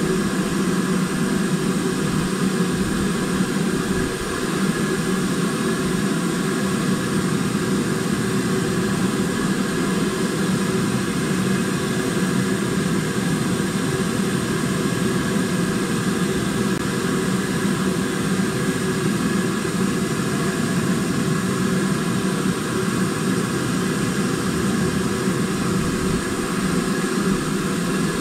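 BR Standard Class 5 steam locomotive 73156 on the move, a steady rushing running noise with no distinct exhaust beats.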